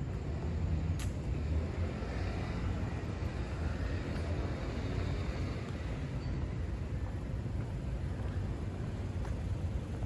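City street traffic: a steady low rumble of passing vehicles, with a short louder bump about six seconds in.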